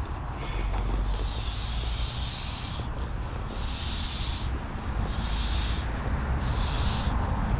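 Air hissing out of the valve of an inflatable camping pillow as it is squeezed flat, in repeated pulses of a second or less, one for each squeeze.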